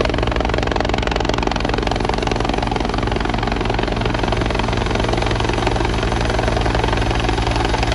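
Helicopter on its approach to land, its rotor beating steadily over a continuous engine sound.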